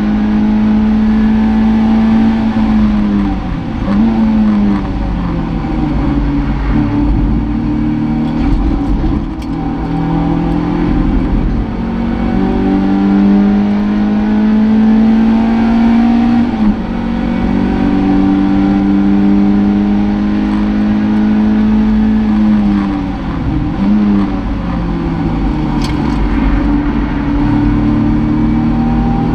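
Toyota MR2 race car's engine heard from inside the cabin at racing speed, held at high revs. Its pitch falls with quick throttle blips about four seconds in and again near the end as the car slows for corners, then climbs back. It drops sharply once about two-thirds of the way through, an upshift.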